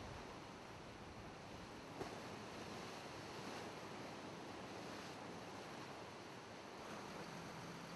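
Steady wash of choppy sea and wind, with one faint tick about two seconds in.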